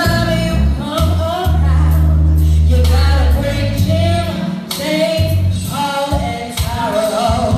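A woman singing live into a microphone in a high register, over backing music with long, heavy bass notes.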